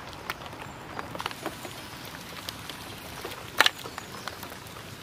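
Scattered light ticks and taps over a faint steady outdoor background, with a louder cluster of clicks about three and a half seconds in.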